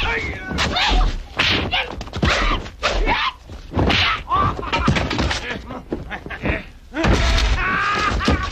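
Fight-scene sound effects from an 1980s martial-arts film: a rapid string of punch and kick impacts, whacks and thuds, mixed with the fighters' shouts and grunts. About seven seconds in, a man's drawn-out vocal cry takes over.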